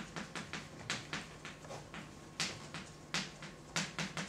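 Chalk writing on a blackboard: an irregular run of sharp chalk taps and short strokes as words are written, a few of them louder.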